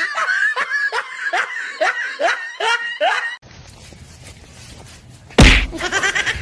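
A person laughing in a run of quick, pitched bursts. The laughter stops about three and a half seconds in, and a sudden loud burst of noise comes near the end.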